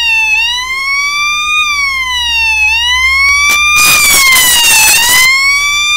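Homemade two-NE555 siren circuit sounding through a small 8-ohm loudspeaker: a loud, buzzy electronic tone wailing slowly up and down in pitch, about one rise and fall every two and a half seconds. A little past halfway a rough crackling rides on the tone for about a second and a half.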